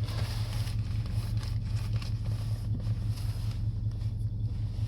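Steady low hum with faint background noise and a few soft handling ticks.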